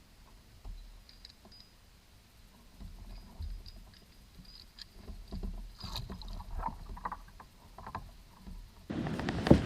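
Irregular small knocks, clicks and low thuds of gear being handled aboard a plastic fishing kayak. Near the end a loud steady rush starts suddenly, with one sharp click, the loudest sound.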